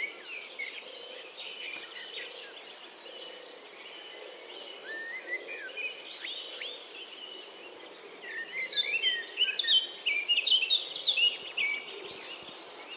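European robin singing: a short phrase about five seconds in, then a louder, longer phrase of rapid, high, tumbling whistled notes from about eight and a half to eleven and a half seconds.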